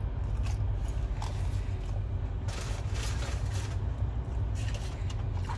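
Paper food bags and wrappers rustling and crinkling in a couple of bursts over a steady low hum.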